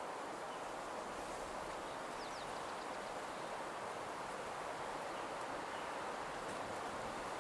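Ambient nature soundscape: a steady, soft rustling hiss, with a few faint, quick bird chirps about two seconds in.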